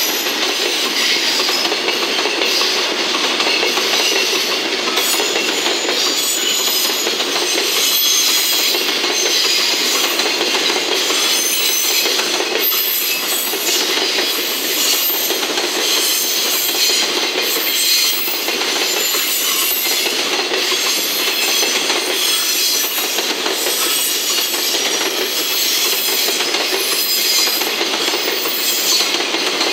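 Long container freight train rolling past behind a JR Freight EF210 electric locomotive: a steady, loud rumble of the container wagons' wheels on the rails, with a repeated clickety-clack as the wheels cross the rail joints.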